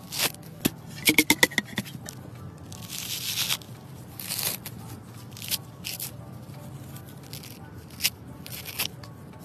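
Fibrous husk of a sprouted coconut being torn and pulled apart by hand: a series of short rasping tears, with a quick run of sharp crackling snaps about a second in.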